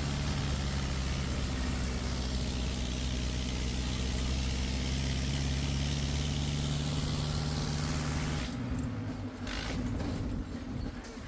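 A motor vehicle's engine running steadily, a low hum with a rushing noise over it. About eight and a half seconds in, the engine hum drops away, leaving scattered knocks and clicks.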